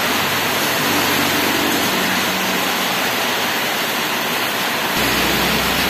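Steady, loud rushing hiss with no clear pattern.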